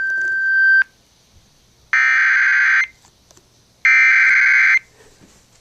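Emergency Alert System SAME header tones broadcast over FM radio: a steady electronic tone cuts off just under a second in, then two digital data bursts just under a second long, about a second apart, marking the start of an emergency alert.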